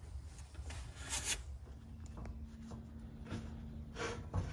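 Handling noise of a metal jet pump housing being moved and set up under a shop press: rubbing and scraping, with a louder scrape about a second in and a knock near the end. A faint low hum runs under the second half.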